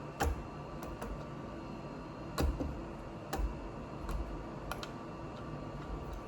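LEGO bricks being handled: a handful of irregular sharp plastic clicks and knocks, the loudest about two and a half seconds in.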